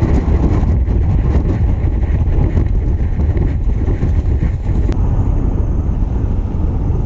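Wind buffeting the microphone: a loud, steady low rumble that gusts unevenly.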